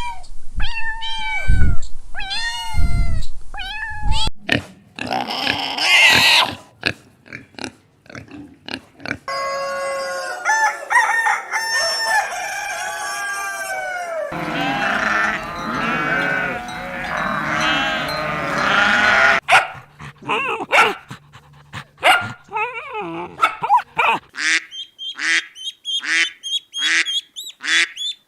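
A series of different farm animal calls following one another: a few separate calls at the start, a dense chorus of overlapping calls in the middle, and a fast run of short repeated calls over the last few seconds.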